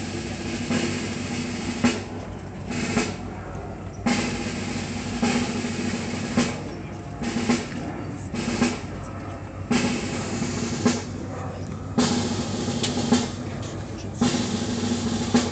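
Ceremonial snare drum playing a series of rolls, each about half a second to two seconds long, separated by short breaks.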